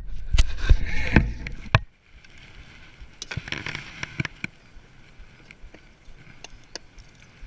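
Knocks, bumps and rustling from handling gear in a small boat while a fish is landed at the side. A dense run of loud thumps and clicks fills the first two seconds, then fainter scattered clicks and a brief rustle about three to four seconds in.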